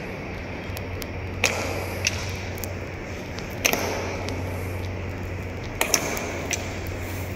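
Honour guard's boots striking a polished stone floor in a slow ceremonial march: a sharp, echoing strike roughly every two seconds, with a quick double strike about six seconds in, over a low steady hum.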